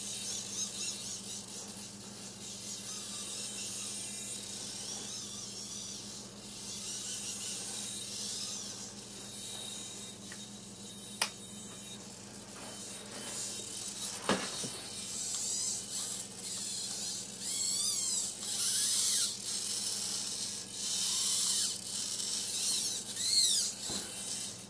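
Servos of a camera gimbal mount whining high, in wavering rising and falling sweeps as the mount moves, louder in the second half. A low steady hum sits beneath. There is a sharp click about eleven seconds in and a knock about fourteen seconds in.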